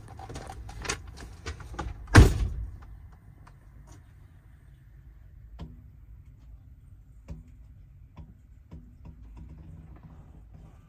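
A Kenworth T680 semi truck's cab door being handled, with a few knocks and clicks, then slammed shut about two seconds in with one loud bang. A few faint ticks follow inside the closed cab.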